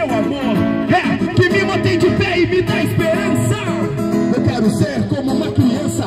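A man singing a gospel song into a microphone, accompanied by a strummed acoustic guitar.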